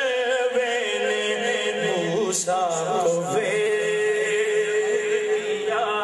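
A man singing a naat unaccompanied in a melismatic style, the line wavering with ornaments, then settling into one long held note from about halfway through. A low steady drone sounds beneath the first half.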